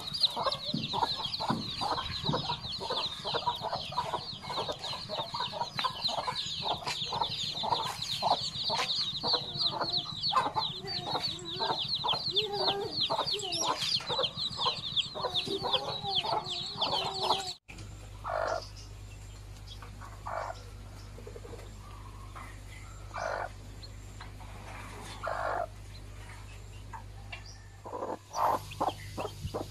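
Domestic hen clucking among a brood of newly hatched chicks peeping rapidly and continuously, for about the first seventeen seconds. After a sudden cut, a few single hen clucks a couple of seconds apart over a steady low hum.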